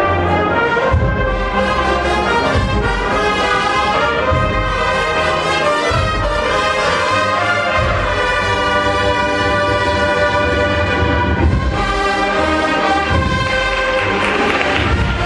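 Agrupación musical, a brass-and-percussion procession band, playing a processional march: held brass chords and melody over low drum beats.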